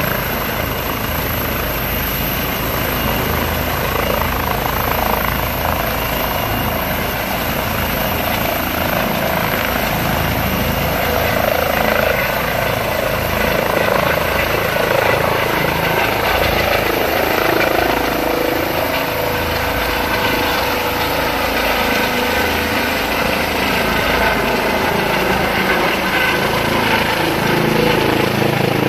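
Air ambulance helicopter running loud and steady through lift-off from the helipad, with rotor noise from hover into a climb that passes overhead.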